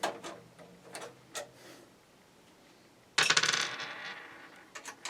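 Small clicks of a screwdriver working a power-supply mounting screw on a PC case. About three seconds in comes a sudden metallic clatter that fades over about a second, like a loosened screw dropping onto metal.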